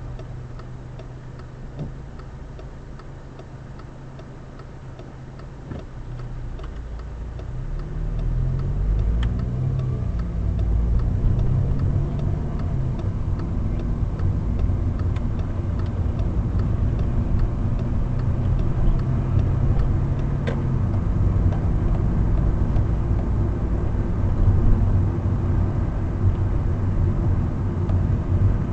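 VW Golf 6 with a dry-clutch DSG gearbox heard from the cabin: the engine idles with a faint regular ticking, then about seven seconds in the car pulls away, engine pitch rising and dropping back through upshifts, settling into steady engine and road noise.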